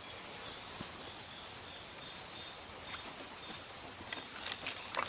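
Faint outdoor background with a brief high hiss about half a second in, then a run of light clicks and knocks near the end as the big-bore air rifle is handled at the shooting bench.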